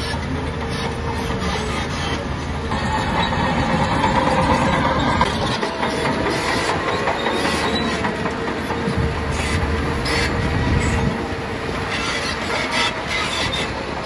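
Crawler bulldozer at work: its diesel engine runs steadily under load while the steel tracks clank and squeal.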